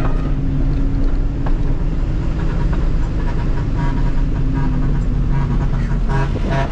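Dump truck's diesel engine running steadily while driving, heard from the cab. Near the end, the melodic 'ong vàng' musical horn of the truck ahead starts to play.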